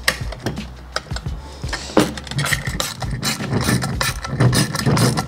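Small metal clicks and rattles of M4 bolts, washers and nuts being threaded and snugged onto a black metal fish-box foot bracket by hand, growing busier about two seconds in.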